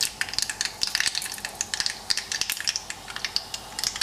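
Urad dal and mustard seeds frying in hot sunflower oil in a kadhai, tempering for a chutney: a steady sizzle with many rapid, irregular crackles and pops.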